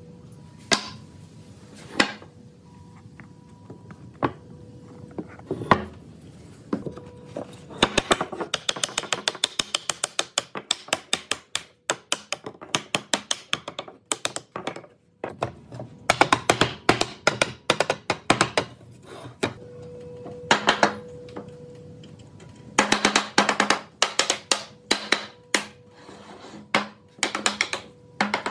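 Wooden mallet knocking on a wooden frame to drive its joints together: a few separate heavy knocks, then runs of quick light taps.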